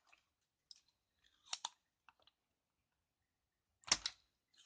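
Sparse small clicks and taps from hand tools and the keyboard circuit board being handled during switch desoldering; the loudest is a short cluster of sharp clicks about four seconds in.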